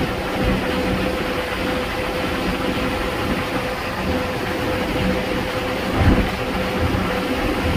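Steady road noise from a vehicle driving across a bridge deck: tyre and wind rumble under a steady hum, with a brief thump about six seconds in.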